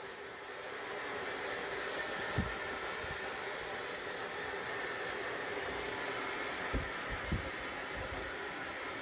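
Hair dryer blowing steadily, building over the first second and then holding, with a few brief low thumps.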